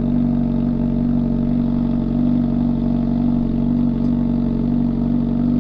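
Motorcycle engine running steadily at constant revs, a droning hum that holds one pitch throughout.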